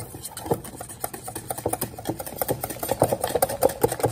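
A wire whisk beating homemade mayonnaise (egg, mustard and oil) in an enamel bowl. It makes rapid clicking strokes against the bowl's side, several a second, which grow louder about halfway through.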